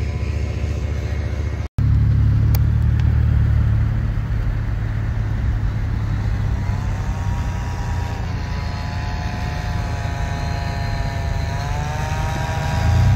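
Paramotor engine and propeller droning as it flies low past. About two seconds in, the sound cuts out briefly and a heavy low rumble of wind and car noise takes over, with the paramotor's engine tone rising in pitch near the end.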